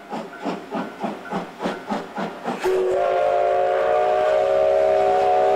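JNR Class C57 steam locomotive (C57 1) working a train, its exhaust chuffing about four or five times a second. About halfway through, its steam whistle sounds one long blast, a chord of several tones held to the end.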